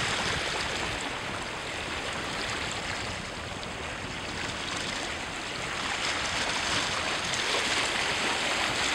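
Sea water sloshing and washing with wind on the microphone: a steady wash that swells a little over the last few seconds.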